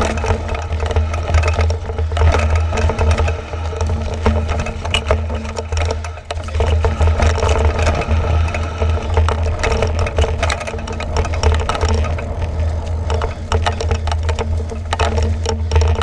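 Mountain bike clattering and rattling over a rough dirt-and-rock trail, with a steady low wind rumble on the bike-mounted camera's mic.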